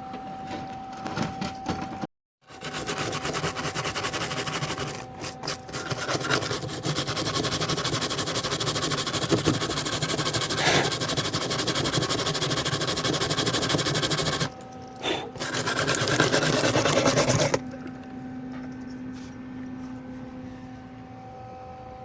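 Electric arc welder crackling steadily while welding steel at a car's trunk latch striker. Two long runs, with a short break about twelve seconds in; the crackle stops a few seconds before the end, leaving a quieter background.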